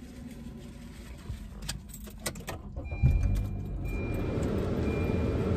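A few light clicks, then about three seconds in the car's air-conditioning blower comes on at high speed: a steady rush of air that holds to the end.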